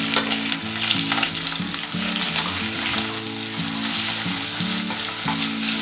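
Freshly added sliced onions sizzling and crackling in hot ghee in a stainless steel pressure cooker, stirred with a wooden spatula.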